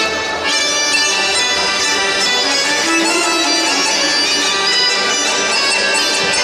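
Fast Bulgarian folk dance music led by the bagpipe (gaida), playing a steady, unbroken melody over a drone.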